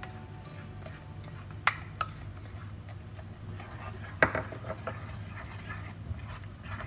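A spatula scraping condensed milk out of a bowl and stirring it into a wet mango and paneer mixture in a non-stick pan. A few sharp knocks of the spatula against the bowl and pan come through, the loudest about four seconds in.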